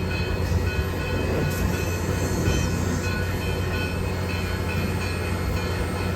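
A train running steadily on its track: an even running noise with a low hum, no horn or distinct clanks.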